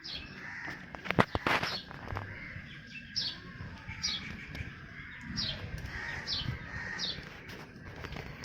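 A bird repeating short, high chirps that fall in pitch, roughly once a second, with a cluster of sharp knocks about a second in.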